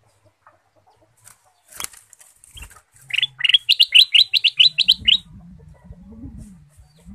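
Ruby-throated bulbul (kutilang emas) singing a fast trill of about a dozen short rising notes, about five or six a second, lasting about two seconds. A single sharp tick or flutter comes a second or so before it.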